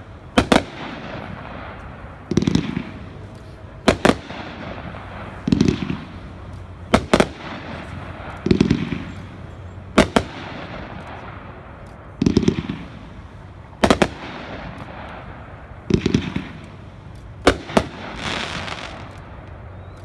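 500-gram consumer fireworks cake 'Paparazzi' firing shot by shot, deep launch thumps alternating with sharp bursting cracks about every one and a half to two seconds, with a short crackling hiss near the end.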